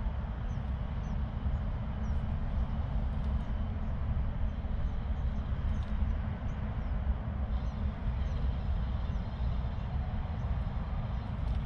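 Wind buffeting the microphone: a steady low rumble that swells and dips, with faint short high chirps repeating in the background.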